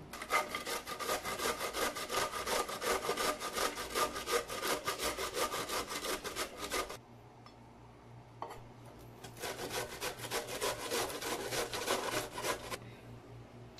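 Cauliflower being grated on a stainless-steel box grater: quick back-and-forth strokes of the florets across the grater's teeth. The strokes stop for about two seconds past the middle, then start again and stop near the end.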